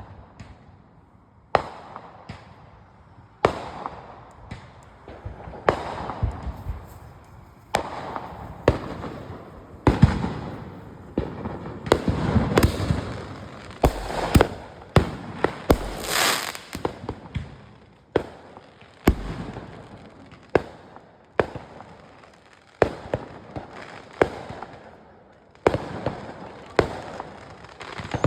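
Backyard consumer fireworks going off in an irregular string of sharp bangs and pops, roughly one a second. Some are followed by crackling tails, and there is a brief high hiss a little past the middle.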